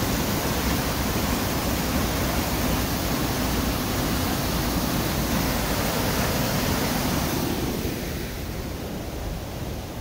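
Water of Ryuzu Falls, a long cascade waterfall, rushing in a steady dense rush of noise; it grows somewhat quieter, mostly in its higher part, about seven and a half seconds in.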